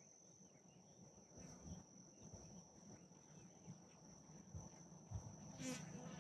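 Near silence: faint outdoor pasture ambience with a steady high-pitched tone and faint rustles, and a short pulsed chirp near the end.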